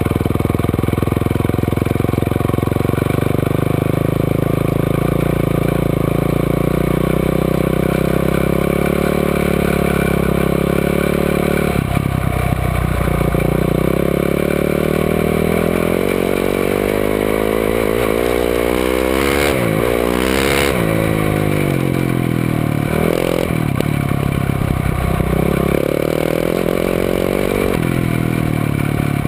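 Quad bike (ATV) engine running under way, steady at first, then revving up and down several times in the second half as the throttle opens and closes, with a few sharp knocks and clatter in the middle.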